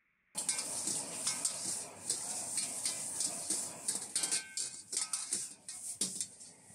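Food frying in a wok, with a loud hiss and repeated sharp clatter of metal utensils against the pan, starting abruptly and easing near the end.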